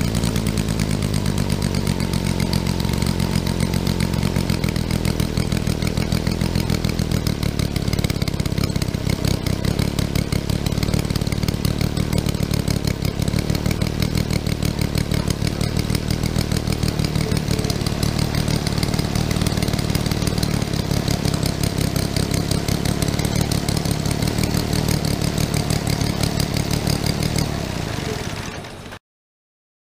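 Home-built 60 cm³ three-cylinder model engine, built after a large ship's diesel, running steadily with a fast, even beat of firing strokes. Near the end the sound drops away and then cuts off.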